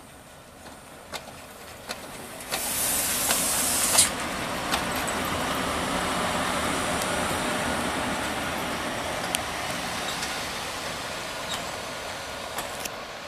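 FS class E656 electric locomotive running light past at close range. The rolling noise swells and then fades, with a loud hiss about three seconds in and sharp wheel clicks over the rail joints.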